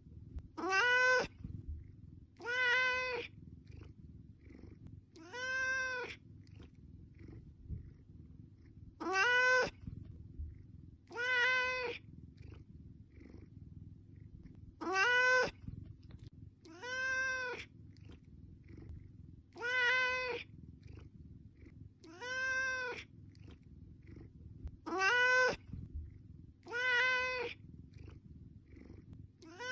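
Domestic cat meowing repeatedly: about a dozen short meows, each rising and then falling in pitch, every two to three seconds, the calls of a cat asking for food.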